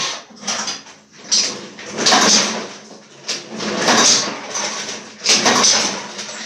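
Recoil starter of an 8 hp Honda mower engine pulled three times, each pull a rasping whir of the rope and the engine turning over, about a second and a half apart. The engine cranks without catching, starved of fuel by a carburetor whose jets are clogged.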